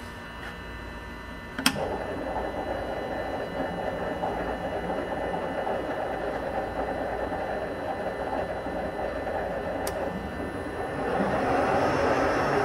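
Harrison Alpha 400 CNC lathe spindle running in the medium range of its three-speed geared headstock, driven by an AC vector drive: a sharp click about two seconds in, then a steady mechanical running noise. Near the end it grows louder and a whine climbs in pitch as the spindle speed is turned up.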